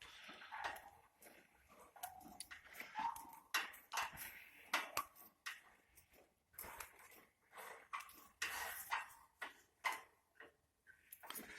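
Household main water pipe making irregular ticking and knocking noises with a few short squeaks, while the water meter swings back and forth: water surging to and fro in the service line.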